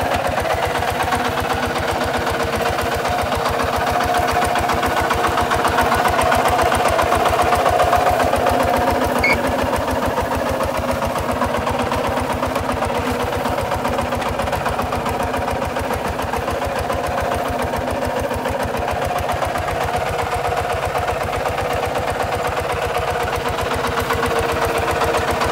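Kubota RT140 DI walking tractor's single-cylinder diesel engine running steadily under load as it pulls a tillage implement through dry soil, with a fast, even firing beat. It swells slightly louder about a quarter of the way in.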